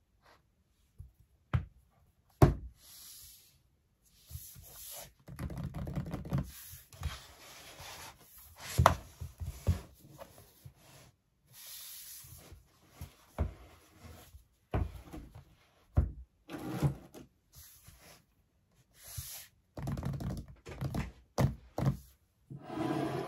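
Hands handling an iPad Pro and its Apple Magic Keyboard case on a wooden desk: a busy run of knocks, taps and rubbing as the keyboard folio is closed over the iPad and hands slide over the closed covers. The loudest knock comes about two seconds in.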